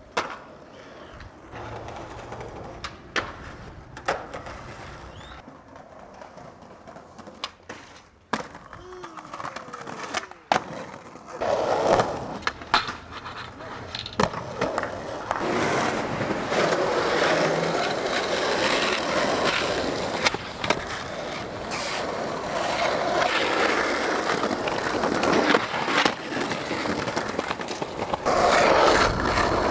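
Skateboards on concrete: sharp clacks of tails popping and boards landing, scattered through the first half. From about eleven seconds in, wheels roll loudly and steadily over rough pavement, broken by more clacks.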